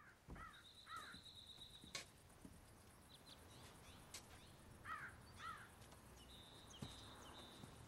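Faint evening outdoor ambience. A bird gives short paired chirps twice, and a thin high trill, of a bird or an insect, sounds for about a second and a half near the start and again near the end. A few faint clicks fall in between.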